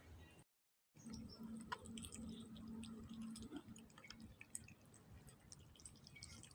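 A cat eating: faint, irregular wet clicks and smacks of chewing and licking. A faint steady low hum runs underneath, and the sound cuts out completely for a moment near the start.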